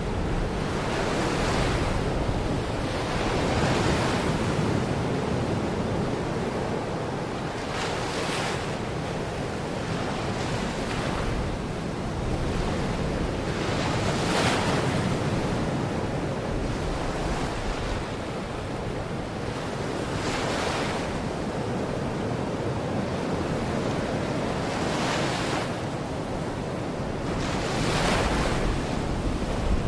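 Small waves breaking and washing on a Baltic Sea shore, a surge every few seconds over a steady wash of surf. Wind buffets the microphone with a low rumble.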